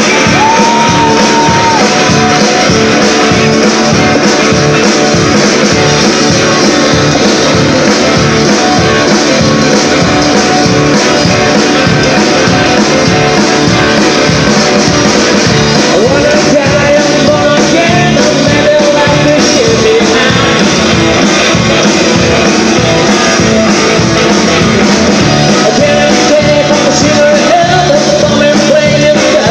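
Live rock-and-roll band playing loud and steady, with acoustic guitar, upright bass and drums, and a few long held melody notes over the top.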